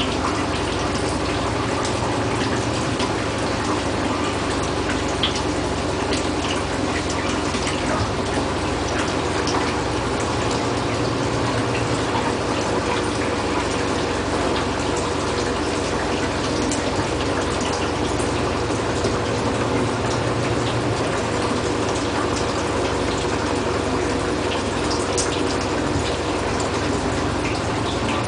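Fully loaded Bosch washing machine running, with water rushing steadily in the machine over a steady mechanical hum.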